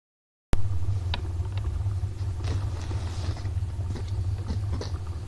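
A steady low rumble that starts abruptly about half a second in, with a few faint clicks and hiss over it.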